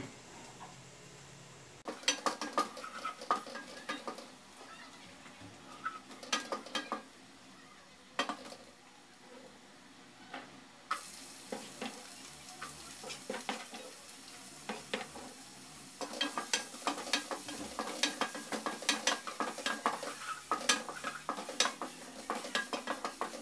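Chopped onion frying in a pan as the start of a pasta sauce, sizzling while a spatula stirs it, knocking and scraping against the pan again and again. The sizzle gets louder about halfway through and again a few seconds later.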